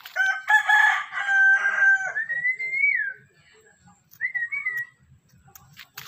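A rooster crowing: one long crow of about three seconds that ends in a note rising and then falling, followed a second later by a short, higher call.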